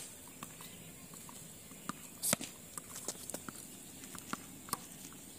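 Tennis balls knocking on a hard court: a scattered string of short, sharp ball bounces and racket hits, the loudest single hit about two seconds in.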